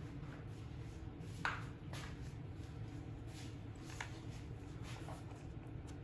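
Quiet room tone with a steady low hum and a few faint, short clicks spread through it.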